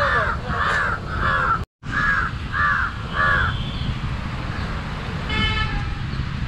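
A crow cawing repeatedly: about six harsh caws at an even pace over the first three seconds, broken by a moment of dead silence, over low wind rumble.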